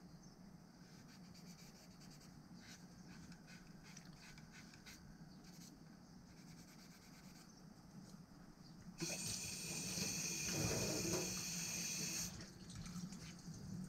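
Faint scratching and rubbing as old finish is scraped off a bamboo landing-net handle. About nine seconds in, a tap runs loudly for about three seconds and cuts off suddenly.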